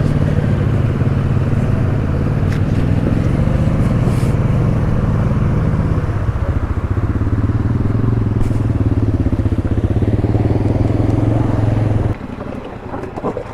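ATV engine running close under throttle, its pitch stepping down about halfway through and then holding steady. It falls off sharply near the end.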